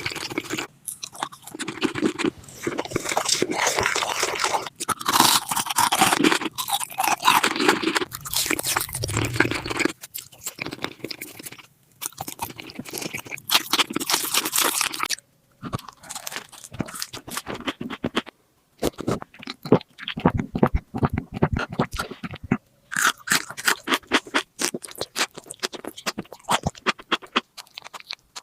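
Close-miked crunching and chewing of crisp food, a rapid run of crackles and bites. It breaks off abruptly several times and starts again.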